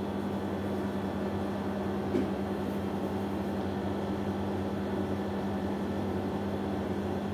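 Steady room hum with a constant low drone, and one short faint knock about two seconds in.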